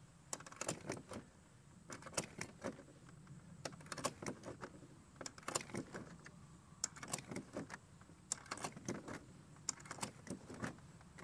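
9mm cartridges being pushed one at a time into a Glock 26 magazine with a Pearce grip extension, using a hand-held magazine loader: a run of irregular sharp clicks and small metallic rattles of brass and loader.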